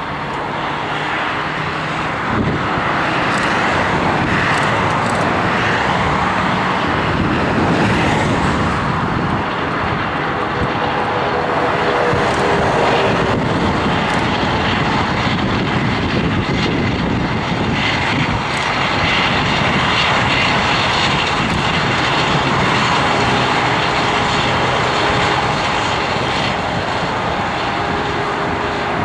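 Jet aircraft engines running steadily, a broad rushing noise with faint steady whining tones, from an Airbus A340-300's CFM56 turbofans during pushback behind a tow tractor.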